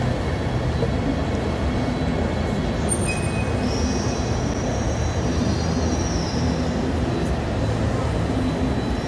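Busy main railway station ambience: a steady rumble and hubbub of a station with a train, and a high thin squeal lasting a few seconds around the middle.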